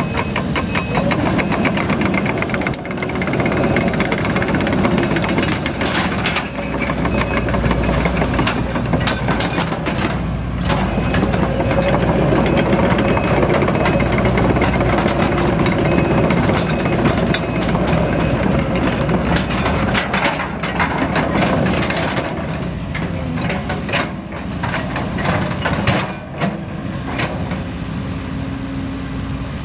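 Case CX210B excavator's Isuzu four-cylinder turbo diesel running with its load rising and falling as the machine works, with many sharp knocks and clanks scattered through it. The travel alarm beeps for the first couple of seconds.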